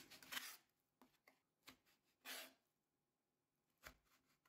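A few faint, soft strokes of a kitchen knife cutting through soaked, rehydrated seaweed onto a plastic cutting board, irregularly spaced with near quiet between them.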